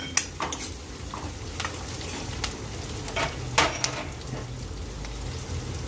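Chopped onions, green chillies and curry leaves sizzling in oil in an iron kadai while a steel ladle stirs them, scraping and knocking against the pan several times.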